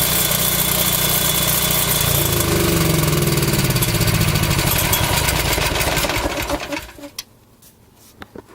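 Guardian 4700 RV generator engine running, its pitch sagging after about two seconds, then dying away and stopping about six to seven seconds in. A few light clicks follow.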